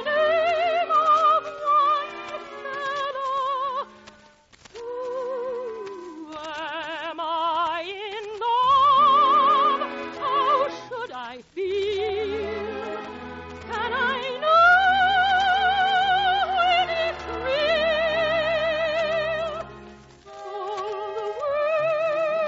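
Operatic soprano singing long held notes with wide vibrato over an orchestra, the phrases broken by short breaths; the loudest, highest held note comes about two-thirds of the way through.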